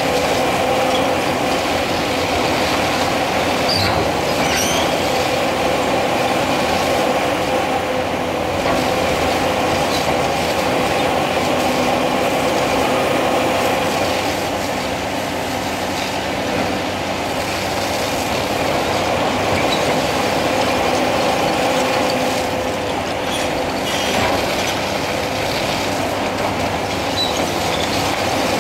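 Caterpillar 336 Next Generation excavator's C9.3B diesel and hydraulics running steadily under load with a constant whine, as its demolition attachment works a concrete and brick building. A few sharp cracks and squeaks break through.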